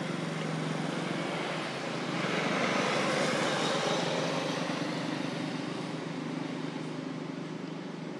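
Steady drone of a motor vehicle engine, growing louder about two seconds in and easing off again.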